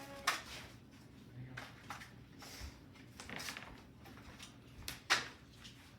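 Plastic blister packaging and cardboard crinkling and snapping as a die-cast toy car is worked out of its pack, with several sharp clicks, the loudest near the start and about five seconds in.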